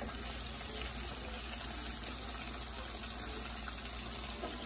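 Breaded chicken tenders frying in hot oil in a pan: a steady sizzle of bubbling oil.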